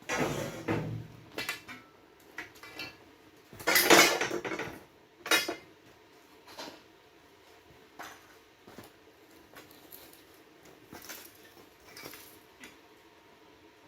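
Metal parts and tools clanking and rattling as they are handled, several short clatters in the first half, the loudest about four seconds in, then a few faint ticks.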